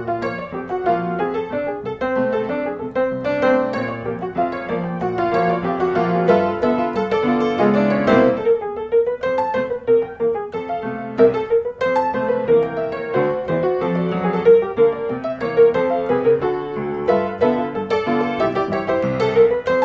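Instrumental background music with a steady run of many short notes.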